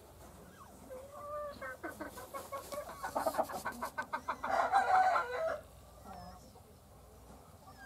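Hen calling at the nest while laying an egg. A pitched call comes about a second in, then a quickening run of short clucks builds into a loud, drawn-out squawk just past the middle, and it then drops back to faint clucks.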